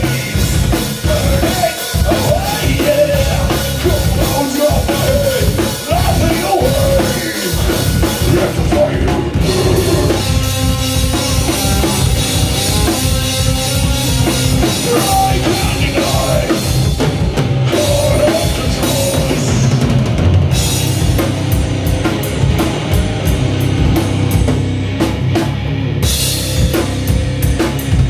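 Heavy metal band playing live: distorted electric guitars over a drum kit, with fast, closely packed drum hits through the last third.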